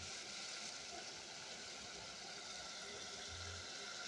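Meat and onions cooking in oil and water in an aluminium pot, giving a steady, soft sizzling hiss.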